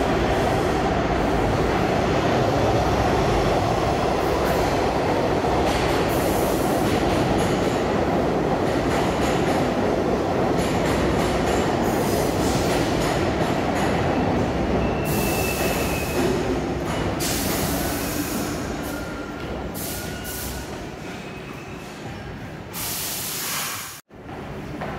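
New York City subway R62A train running on the rails: a loud, steady rumble of wheels and running gear, with a few short, thin wheel squeals past the middle. The sound dies down over the last several seconds, then drops out abruptly about a second before the end.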